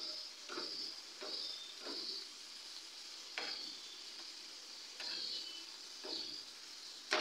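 Prawns sizzling in hot mustard oil in a non-stick pan, with a metal spatula scraping against the pan in short strokes as they are turned, about one every half second at first and then more spaced out. A sharp knock of the spatula on the pan near the end.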